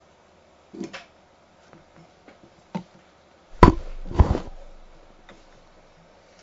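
Desk handling noise as a man shifts in a desk chair and moves things on the desk: a few light clicks and taps, then two loud thumps about half a second apart, the second trailing off with a rustle.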